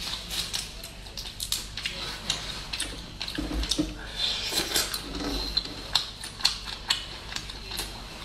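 Shells of boiled prawns crackling and snapping as they are peeled by hand, with wet chewing and lip smacks about halfway through as a prawn is eaten, then more shell crackling.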